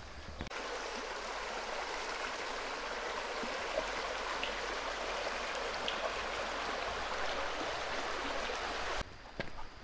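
Mountain stream water rushing steadily; it starts abruptly about half a second in and cuts off sharply near the end.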